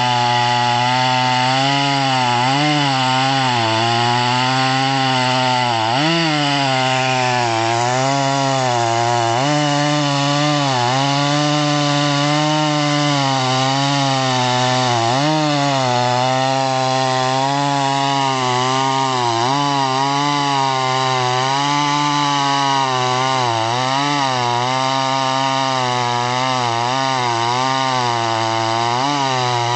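Solo by AL-KO 652 two-stroke petrol chainsaw running at high revs while cutting through a log. Its engine pitch keeps dipping and recovering as the chain bites into the wood under load.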